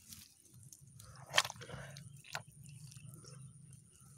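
Wet mud squelching and crunching as a hand digs into a muddy hole in a rice-field bank, with scattered small crackles and one sharp crunch about a second and a half in.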